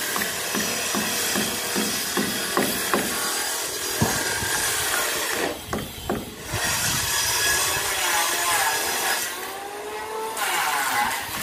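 Electric woodworking machine cutting timber boards: a steady rasping noise with a thin whine on top, which drops off briefly twice, about halfway and near the end. A run of quick knocks sounds in the first few seconds.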